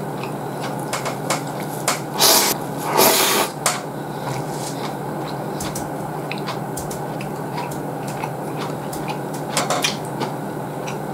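Ramen noodles slurped in two loud bursts, about two and three seconds in, with chewing and small clicks throughout.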